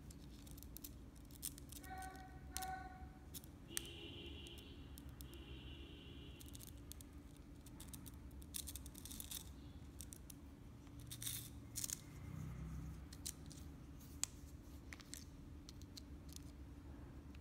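Hand work on a landing-net handle built from an old fishing-rod section: scattered small clicks, taps and handling noises, with a short squeaky scrape about four to six seconds in.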